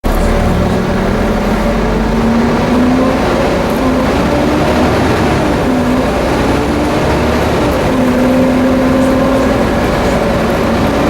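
Volvo B7TL double-decker bus under way, its engine running with a loud whine, the 'hoover' sound, that rises and falls several times over a steady rumble.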